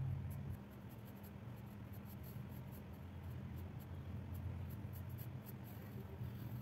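Graphite pencil scratching on paper in short, irregular strokes as it draws and shades. A low steady hum lies underneath, easing off about half a second in.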